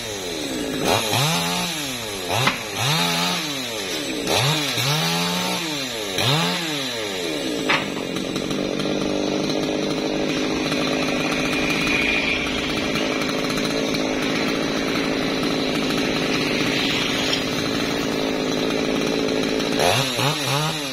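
Chainsaw revving up and dropping back four times in quick succession, then held at a steady high speed, cutting branches of a Java plum tree, before another rise and fall near the end.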